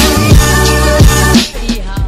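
Intro music: sustained chords over deep bass hits that slide downward in pitch. About one and a half seconds in it drops to a quieter, sparser beat.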